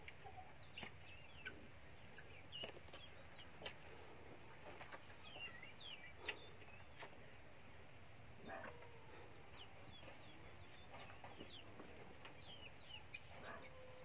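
Chickens clucking softly, with scattered short, high chirping calls and a few sharp clicks.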